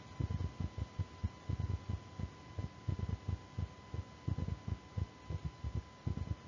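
Irregular low thumping, several thumps a second, over a thin steady high-pitched tone.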